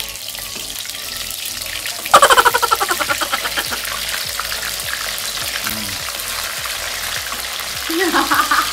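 Spice-boiled chicken pieces frying in oil in a wok, a steady sizzle. About two seconds in, more chicken goes into the oil and sets off a sudden loud burst of crackling and spattering that dies down over the next second or two.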